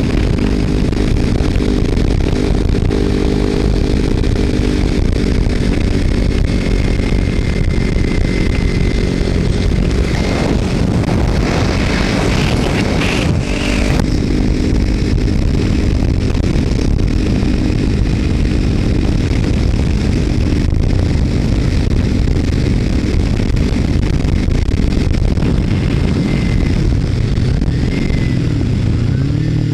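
Kawasaki Ninja 300's parallel-twin engine running through an aftermarket Screaming Demon slip-on exhaust with the baffle removed, held at fairly steady revs while riding. A rush of wind noise runs underneath, swelling briefly about ten to fourteen seconds in.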